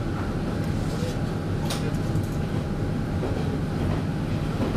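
Inside a diesel local train running along the line: a steady low engine and wheel rumble, with a faint steady whine and one sharp click about two seconds in.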